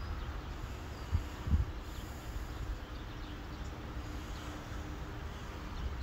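Outdoor ambience: wind rumbling on the microphone, with two short gusts about a second and a half in, and a few faint bird chirps.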